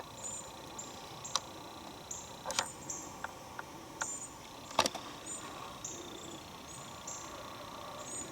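Insects calling, a high chirp repeated about once or twice a second, with a few sharp crackles of dry leaves underfoot, the loudest about five seconds in.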